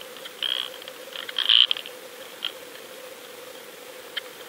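Underwater sound through a submerged camera: a steady faint hum with scattered clusters of sharp clicks and crackles, the loudest about a second and a half in.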